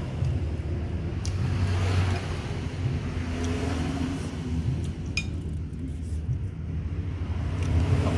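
A steady low engine rumble, like a motor vehicle running nearby, with a metal spoon clinking against a glass soup bowl a few times, most clearly about a second in and again about five seconds in.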